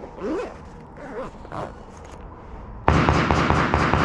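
Quiet range background, then about three seconds in a sudden loud stretch of rapid, closely spaced shots or cracks, about eight to ten a second.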